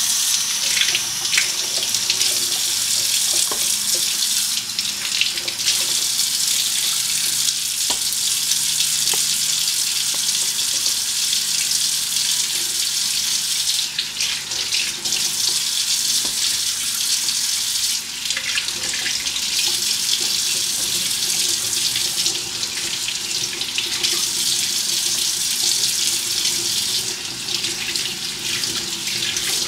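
Kitchen tap running steadily into a stainless-steel sink, starting suddenly and staying even throughout, with a couple of faint ticks about eight seconds in.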